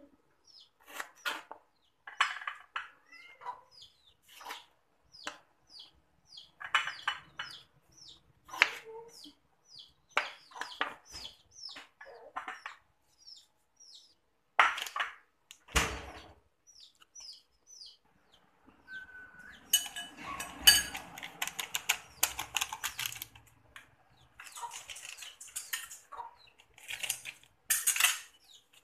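Chickens calling in repeated short, high, falling chirps, over scattered knocks of a kitchen knife cutting tomato on a plastic cutting board. In the last nine seconds or so, a metal spoon clinks and scrapes busily in a glass bowl, mixing dry curry and chilli powders.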